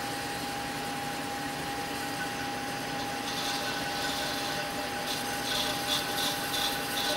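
Metal lathe with its spindle running at about 330 RPM, steadily humming as it turns a shallow 1-degree taper in a mold stripper plate. From about three seconds in, a light repeated scratching comes about three times a second.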